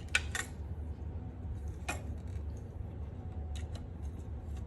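Hard plastic parts of a snap-fit airliner model clicking and knocking as they are handled and fitted onto the model's display stand: a few sharp clicks, two close together near the start and another about two seconds in, over a steady low hum.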